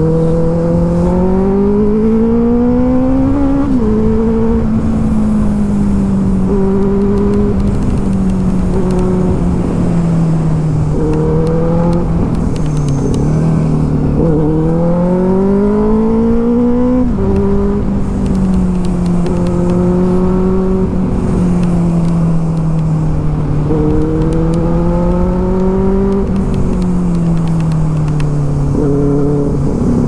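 Benelli TNT 600i inline-four engine running through an aftermarket IXIL exhaust while riding. Its pitch climbs under throttle and then drops sharply three times, with steadier cruising stretches in between.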